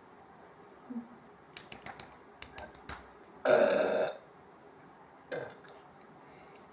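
A woman's loud belch lasting about half a second, about three and a half seconds in, brought up by a carbonated guarana energy drink. A few faint clicks come before it, and a short, much weaker sound follows about five seconds in.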